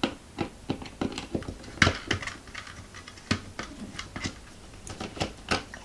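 Irregular clicks and knocks of the old smoke alarm and its ceiling mount being handled and worked loose, with a sharper knock about two seconds in.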